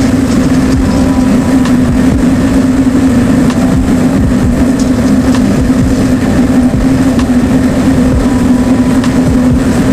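Industrial blade-heating furnace running: a loud, steady rumble with a constant low hum and faint scattered ticks.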